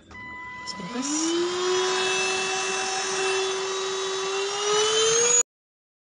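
Kessler K-9998 cordless handheld vacuum cleaner switched on: its motor whine rises in pitch as it spins up about a second in, then runs at a steady high whine. The sound cuts off suddenly near the end.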